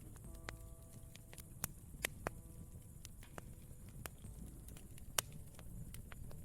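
Campfire crackling: irregular sharp pops and snaps, about fifteen, over a steady low rumble, with the loudest pop about five seconds in.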